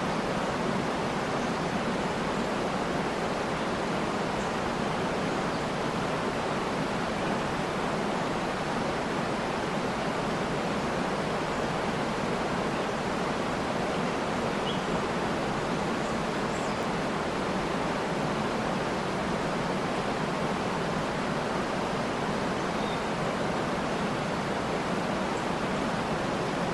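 Steady, unbroken rushing of a waterfall, with a few faint, brief bird chirps over it.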